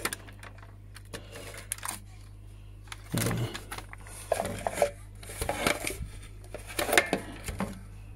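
Clicks and clattering of plastic parts as the opened plastic housing of a CD cassette player is handled, with scattered knocks and denser bursts of clatter through the middle and near the end.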